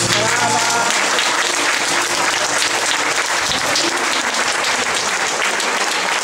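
Audience applauding at the end of a sung song.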